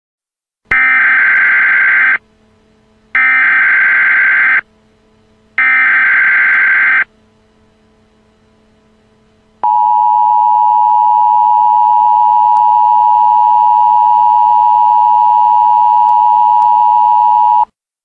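Emergency Alert System header: three short bursts of SAME digital data tones, each about a second and a half long with a gap of about a second, then the two-tone EAS attention signal held steady for about eight seconds before cutting off.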